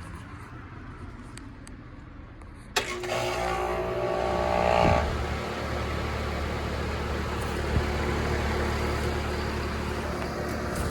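2006 1.5-ton Comfortmaker central air conditioner's outdoor condensing unit starting up. It comes on suddenly about three seconds in, with a higher tone over it for about two seconds. It then settles into a steady running hum of compressor and fan.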